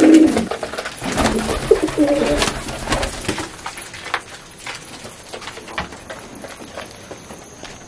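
Domestic pigeons cooing during the first few seconds, then quieter, with scattered light clicks.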